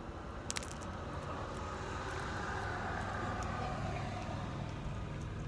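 A passing vehicle: steady road noise that swells to a peak about three seconds in and then fades, over a low hum.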